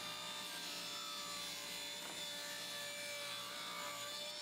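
Table saw ripping a redwood board lengthwise, a faint, steady sawing sound with a light steady tone.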